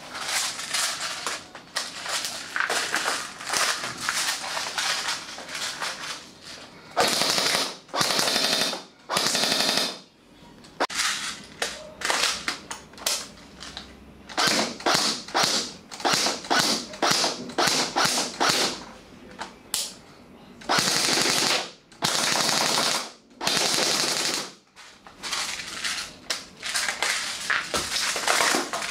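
A.P.S. UAR501B airsoft electric gun (AEG) firing: short bursts and single shots in quick succession, with several longer full-auto bursts of about a second each.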